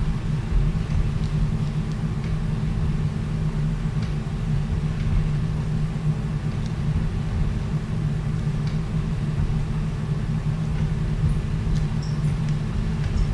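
Steady low hum of operating-room equipment, with a few faint clicks of instruments.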